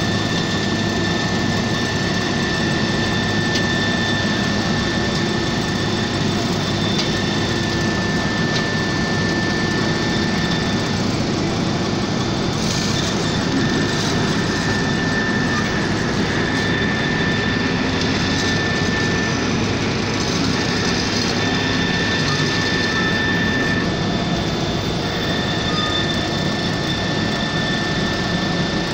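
Heavy road-construction machinery engine running steadily, with a steady high whine over it.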